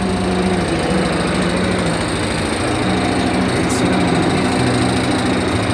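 Kelotok river boat's engine running steadily under way, a dense, loud mechanical drone with a fast, even low pulse.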